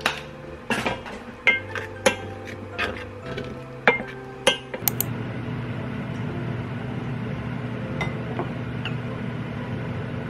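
Dishes and cutlery clinking and knocking, about ten sharp clinks over the first five seconds. A steady low hum then takes over.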